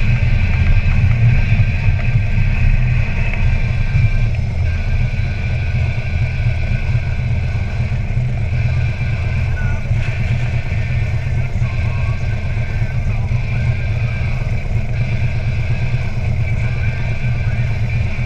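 2012 Harley-Davidson Ultra Limited's 103 cubic-inch V-twin with an Andrews 57H cam and true dual exhaust, running steadily under way with a deep exhaust note.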